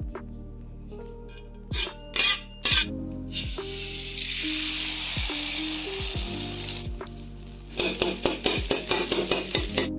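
Beaten egg sizzling as it hits hot oil in a wok, then a spatula scraping and stirring the setting egg against the pan in quick strokes near the end. A few loud pops come about two seconds in, and background music plays throughout.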